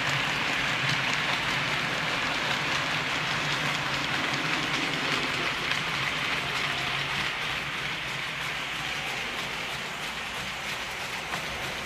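OO-gauge model freight train rolling past on its track: a steady rattle of small wagon wheels on the rails, full of tiny clicks, with a low hum beneath. It grows a little fainter in the second half.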